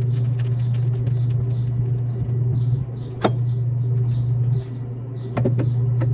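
Toyota D-4D common-rail diesel engine running, a steady low hum with a rhythmic high ticking about three times a second and a few sharp clicks. The level dips briefly twice.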